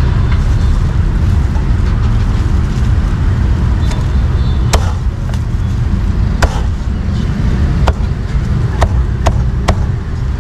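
Heavy meat cleaver chopping roast meat on a round wooden chopping block: about seven sharp single chops, starting about halfway through and coming quicker near the end. Under them runs a steady low rumble of road traffic.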